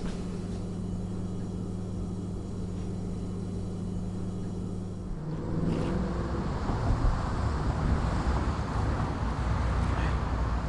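A steady low hum, then from about five seconds in, the rumble of road traffic passing on a nearby street.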